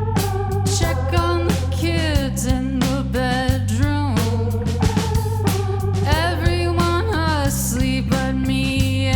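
A rock band playing live, with a singing voice over electric guitar, bass and drums.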